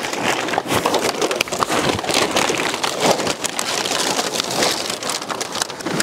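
Empty plastic bottles crackling and clattering against one another as big plastic sacks full of them are dragged and handled, a dense run of sharp crinkling clicks.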